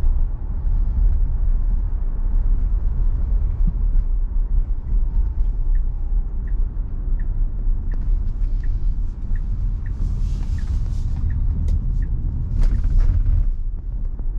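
Road and tyre rumble inside the cabin of a Tesla Model Y, an electric car, as it slows and turns. A turn-signal ticks evenly, about one and a half ticks a second, through the middle of the turn.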